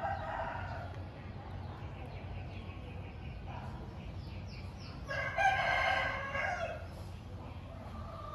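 A rooster crowing once, a long call about five seconds in that is the loudest sound, with fainter shorter calls before it over a low steady rumble.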